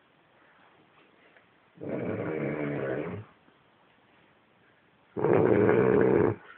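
A pig snoring: two long snores, one about two seconds in and a louder one near the end, with quiet breathing between.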